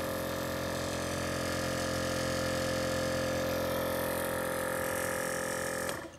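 VIAIR 444C air suspension compressor running under load, hard-mounted to a wooden board with wood screws: a steady, loud electric-motor drone with a strong hum. It cuts off suddenly near the end.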